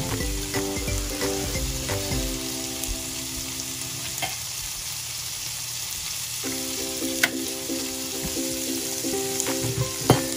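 Sliced carrots sizzling as they fry in a shallow pan, a steady hiss, with two sharp clicks in the second half.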